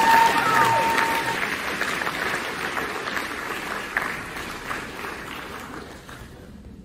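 Audience applauding, with a long, high whoop from someone in the crowd over it in the first second. The clapping fades away about six seconds in.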